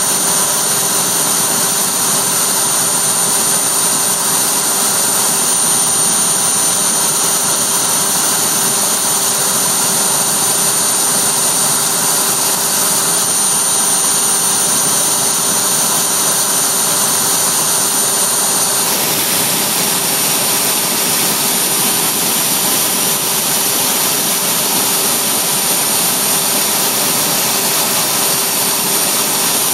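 CNC router spindle running steadily with a 3/32-inch bit, cutting a small hole in polycarbonate: a loud, even whine over a constant hum. About two-thirds of the way through the sound changes: a high steady tone drops out and the noise turns brighter.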